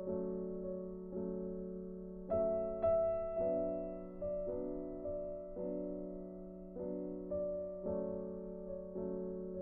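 Background music: soft piano or electric piano chords, struck about once a second and left to ring.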